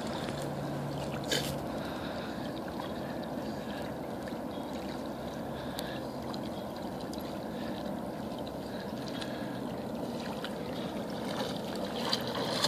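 Golden retriever swimming: a steady wash of water with soft paddling splashes, growing louder near the end as the dog swims up close.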